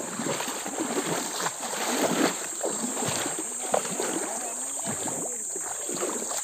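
Shallow pool water sloshing and lapping in small, irregular splashes as people wade and grope among the stones with their hands.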